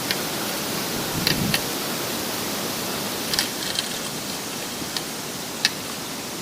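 Steady wind noise buffeting the microphone, with a few sharp clicks scattered through it.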